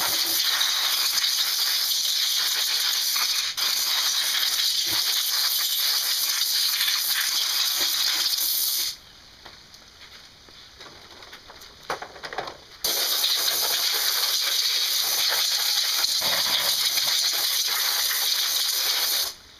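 Compressed-air blow gun hissing as it blasts dust out of an upright vacuum cleaner, in two long blasts of about nine and six seconds with a pause of about four seconds between them.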